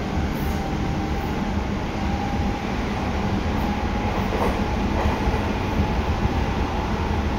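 Seibu 6000 series electric train with Hitachi GTO inverter drive running at speed, heard inside the car: a steady rumble of wheels and traction motors, with faint steady tones above it.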